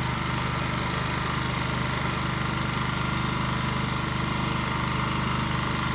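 Champion open-frame dual-fuel inverter generator running on propane, idling steadily in eco mode with no load on it.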